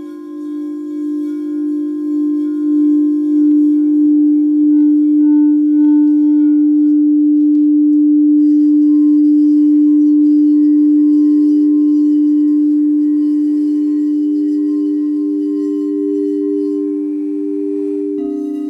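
Frosted quartz crystal singing bowls ringing: one long sustained tone with a slow wavering pulse, swelling over the first few seconds as a mallet is run around a bowl's rim, then holding steady. Near the end another bowl is struck and a different tone comes in.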